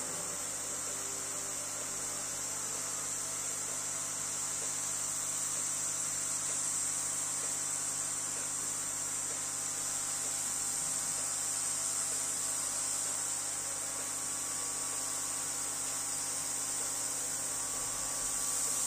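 Sculpfun diode laser engraver running a cutting job: a steady high-pitched hiss and hum from the machine, with faint steady whining tones as the stepper motors drive the laser head slowly across the workpiece.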